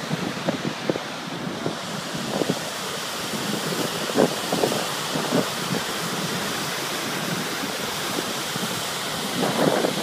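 Steady rush of Niagara's Horseshoe Falls pouring over its brink, with wind buffeting the microphone in uneven gusts, mostly in the first half.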